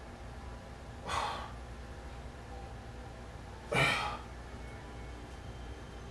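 A man's sharp, forceful breaths out, each timed with a repetition of a dumbbell core exercise: one about a second in and a louder one near four seconds in.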